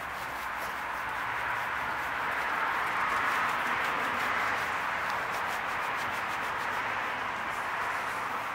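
Clay mitt rubbed back and forth over a soapy car hood: a steady gritty, scratchy rasp (seogeok-seogeok, sagak-sagak). The grit is the sign of contaminants still bonded to the paint; once the surface has been clayed, the mitt no longer makes this sound.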